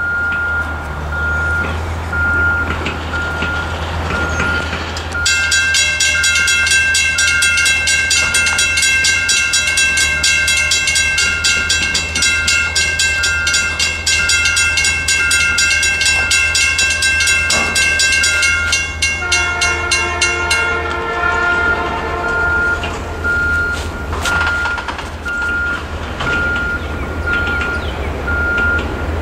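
A railroad crossing's mechanical bell starts ringing rapidly about five seconds in as the crossing activates and the gates come down. It stops around twenty seconds in, once the gates are down. Near the end of the bell's ringing, the approaching freight's diesel locomotive (an EMD GP38-2) sounds its horn, a steady chord lasting a few seconds.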